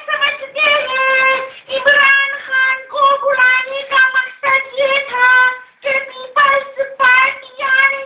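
A squeaky, very high-pitched voice jabbering in quick syllables, its pitch held almost level. It is a comic guest's put-on voice, one that sounds like something is wrong with it.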